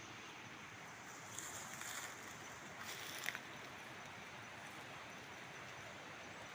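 Steady outdoor background hiss, with two brief, faint higher-pitched sounds about a second and a half and three seconds in.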